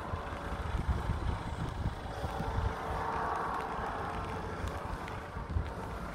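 Wind buffeting a phone microphone, with uneven low rumbling and a faint hiss. The sound swells slightly about three seconds in.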